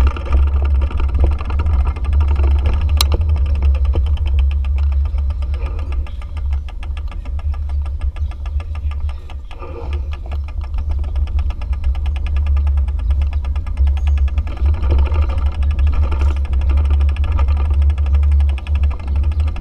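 Small motorbike engine running at low speed, a steady fast pulsing with a deep rumble underneath. A single sharp click sounds about three seconds in.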